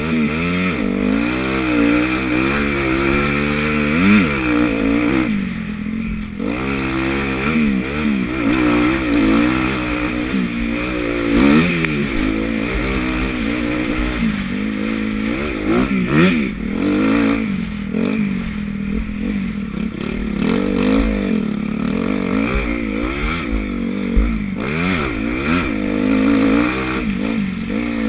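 Honda CRF250 four-stroke single-cylinder motocross bike riding a lap: the engine revs up and drops back over and over as the throttle is opened and closed, under a steady low rumble of wind on the helmet camera.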